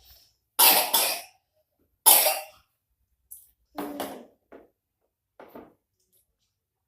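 A person coughing in a string of short, harsh coughs, some in quick pairs, the loudest about two seconds in and the last ones weaker.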